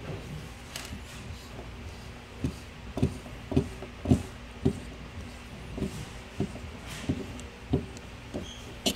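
Irregular light clicks and taps of a small hex key working a screw and nut out of an air sander, with the tool being handled.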